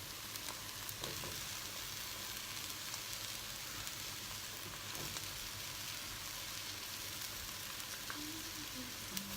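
Potatoes, soy curls and freshly added carrots sizzling steadily in hot olive oil in a stock pot, with a few faint crackles.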